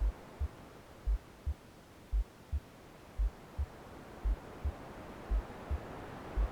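A slow heartbeat sound, a deep lub-dub pair of low thumps a little under once a second, over a steady soft white noise that thins in the middle and builds again near the end.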